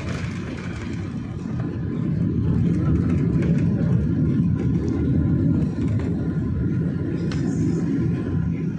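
Airliner's landing rollout heard from inside the cabin: a steady low rumble of wheels on the runway and engine noise, growing louder about two seconds in and holding as the aircraft decelerates.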